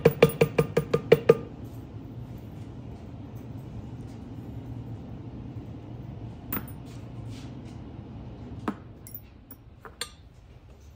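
A mallet rapidly tapping a leather-stamping tool into tooling leather, about five sharp ringing taps a second, stopping about a second and a half in. A few light clinks of metal tools being handled follow later.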